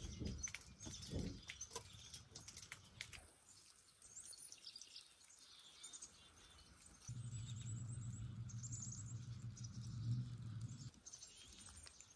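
Wild songbirds chirping faintly, in short high repeated calls. A few light clicks sound in the first three seconds, and a low steady hum joins for about four seconds past the middle.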